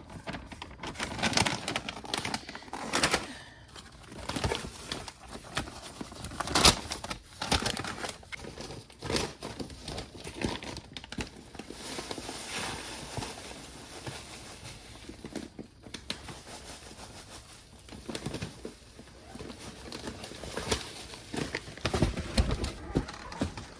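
Irregular rustling and crinkling as hemp pet bedding and its bag are handled and the bedding is spread, with scattered light knocks.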